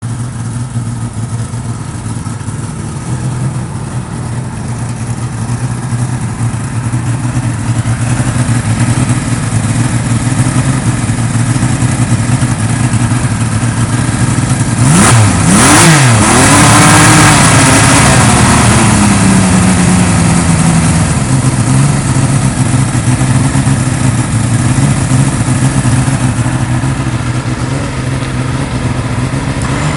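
Supercharged Kawasaki Z1300 liquid-cooled inline-six, boosted by an Eaton Roots blower from a Mercedes SLK with Bosch K-Jetronic injection, idling steadily. About halfway through it is blipped twice in quick succession, the revs rising and falling, then held a little higher for a few seconds before settling back to idle.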